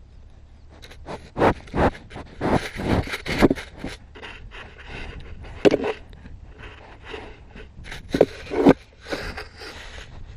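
Scraping and rubbing right against the camera's microphone, in irregular loud strokes with a few sharp knocks.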